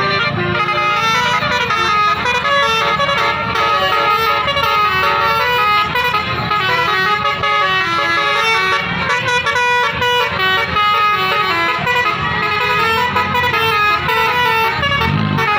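A bus's telolet basuri musical air horn playing a continuous tune of quick, stepping flute-like notes, over the low rumble of a bus engine.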